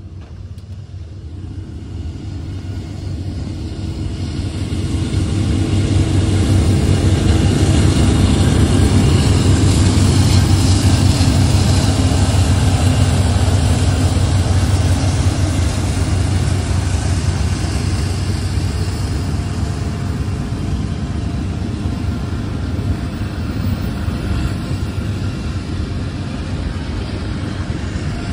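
Freight train passing: two CSX diesel locomotives' engines drone low and steady, growing louder over the first several seconds as they come by, then the train's freight cars rumble past at a steady, slightly lower level.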